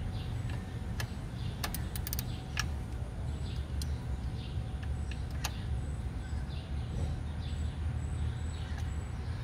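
Steady low background rumble with a handful of sharp metallic clicks from hand tools working the clutch adjuster lock nut, and faint high chirps.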